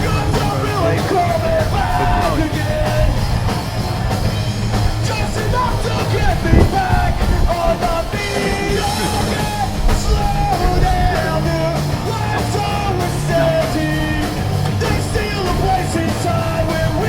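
Rock music with shouted, punk-style singing over drums, guitar and bass.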